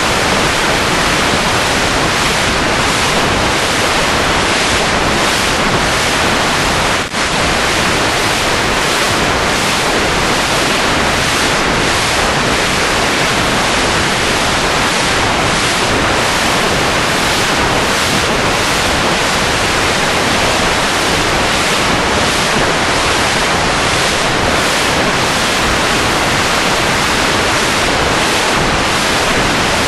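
Steady, loud rushing noise with no pitch, like surf or static, with a brief dip about seven seconds in.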